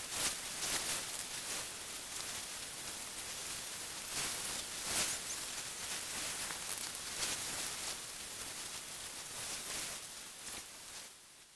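Steady hissing noise full of irregular crackles and rustles, fading out near the end.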